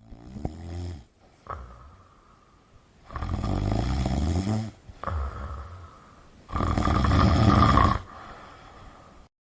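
Labrador retriever snoring in its sleep: a few drawn-out snores, each a second or two long, the loudest about three and six and a half seconds in.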